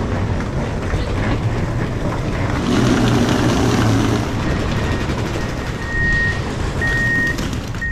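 Steady rumble and hum of a railway station and its platform, swelling about three seconds in. Near the end a high electronic beep sounds three times, about once a second.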